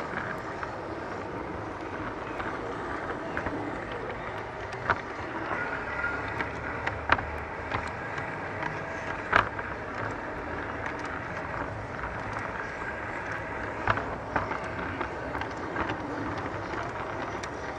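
G-scale LGB garden-railway train rolling along the track, a steady running noise broken by a few sharp clicks.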